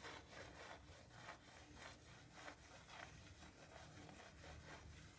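Faint, steady back-and-forth scraping strokes by hand, about two a second, like a scraper or brush worked over a surface.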